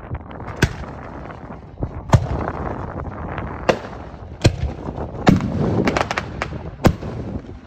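Aerial firework shells bursting overhead: a series of sharp bangs about a second or so apart, with a quick run of smaller cracks just past the middle.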